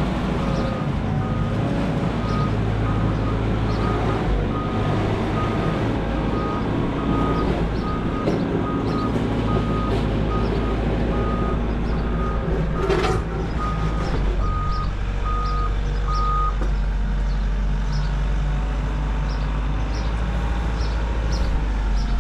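A heavy construction vehicle's reversing beeper sounding a steady series of single-pitch beeps over its running diesel engine. The beeping stops about three-quarters of the way through. A brief hiss comes a little before the beeping ends.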